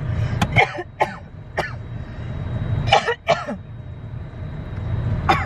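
A woman coughing in a string of fits, about seven in all and hardest around the middle, after coffee went down the wrong way. A car's low running rumble sits underneath.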